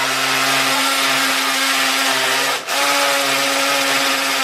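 A 14.4-volt DeWalt cordless drill boring into a wooden mounting board, its motor running steadily with a brief stop about two and a half seconds in before it starts again.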